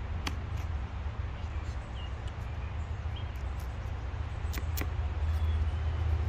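Knife scraping along a white bass on a plastic cutting board: a few sharp scratchy clicks, one just after the start and two close together past four seconds, over a steady low rumble that grows a little louder near the end.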